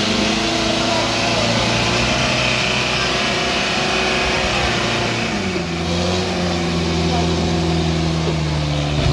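A vehicle engine running steadily, its note stepping down lower about five seconds in.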